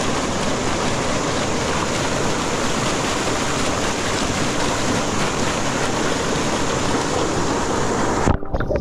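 Mountain stream rushing and splashing steadily down a small cascade between boulders into a pool. It cuts off abruptly near the end.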